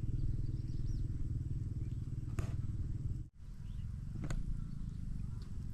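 A low motor rumble with a fast, even pulsing, which cuts out abruptly about three seconds in and comes back quieter, with two sharp clicks and faint high chirps over it.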